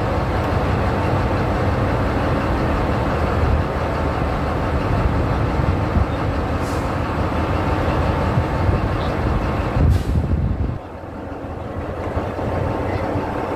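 Caterpillar 777D haul truck's diesel engine running, heard close up from the truck's operator deck. About ten seconds in there is a short sharp burst, and then the low engine sound drops quieter.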